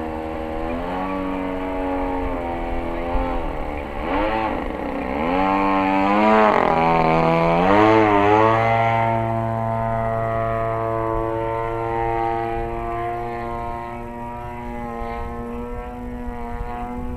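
Desert Aircraft DA-35 single-cylinder two-stroke gas engine and propeller on a 73-inch Laser 230z aerobatic RC plane in flight. Its pitch swings up and down repeatedly through the middle, where it is loudest, then holds steady near the end.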